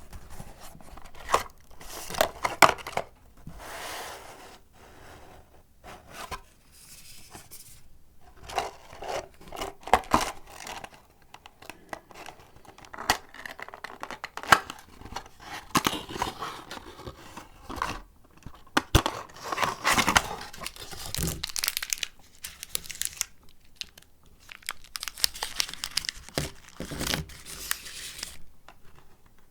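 Paper and wedding-candy packaging handled close to the microphone: irregular crinkling and tearing with sharp crackles, pausing now and then.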